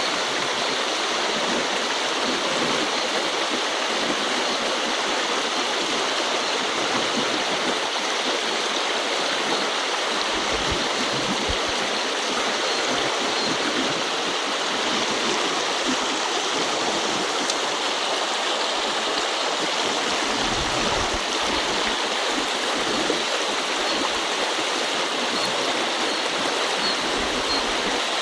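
Shallow river current flowing steadily over a stony riffle, an even rushing of water.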